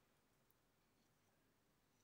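Near silence: room tone, with one faint tick about half a second in.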